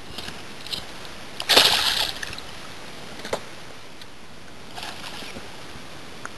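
A hooked tararira (wolf fish) splashing at the water's surface beside the boat: one loud splash about a second and a half in, then smaller splashes as it is lifted from the water.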